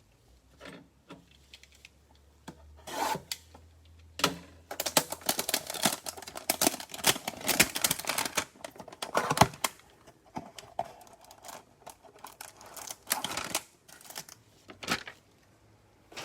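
Trading-card packs and cards being handled: a dense run of rapid clicks and rustles from about five to ten seconds in, with scattered single clicks before and after.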